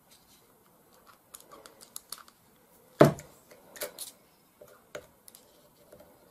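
Small clicks and ticks of a T-handle hex key working a small screw in an airgun's metal action, with one louder knock about three seconds in.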